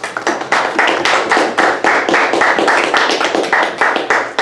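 A small audience applauding, with one set of claps standing out clearly at about four a second.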